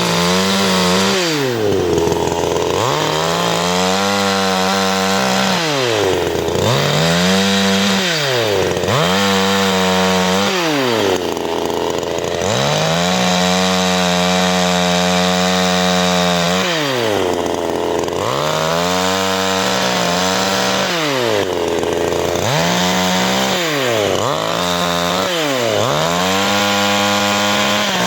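Two-stroke 54.6 cc CanFly chainsaw engine revved repeatedly from idle to full throttle and back, about a dozen times, with one longer hold at full revs for about four seconds midway.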